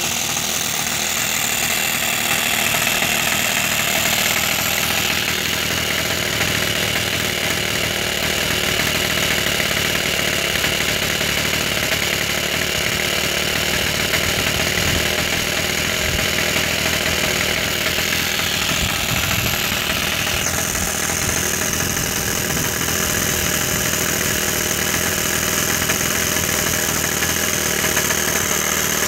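O.S. FS-26S four-stroke glow engine of a 1/12th scale live diesel locomotive, running steadily. Its note shifts twice, about 5 seconds in and again about 20 seconds in.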